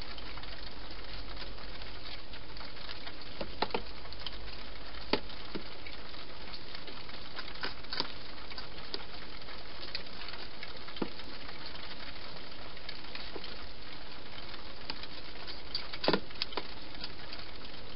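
Hedgehog eating from dishes inside a plastic feeding box: scattered sharp clicks of chewing and of the bowls being knocked, the loudest cluster near the end, over a steady hiss.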